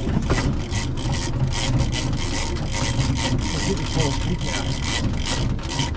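A fishing reel being cranked hard to gain line on a hooked bluefin tuna, in quick repeated strokes about three a second, over a steady low rumble.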